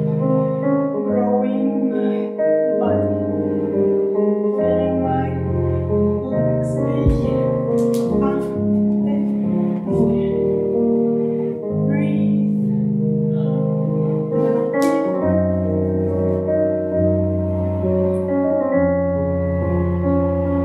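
Piano music playing as ballet class accompaniment, with held chords that change every second or two.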